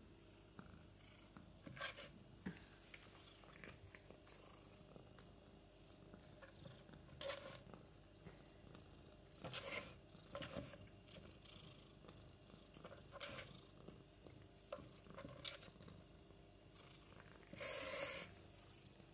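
A kitten purring faintly and steadily. A few short scraping noises break in, the longest and loudest near the end, as it paws at kibble in a plastic slow-feeder plate.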